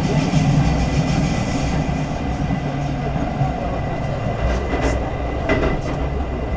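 A four-car JR West local electric train running along the track, heard from inside the carriage as a steady low rumble. A few short ticks come through about five seconds in.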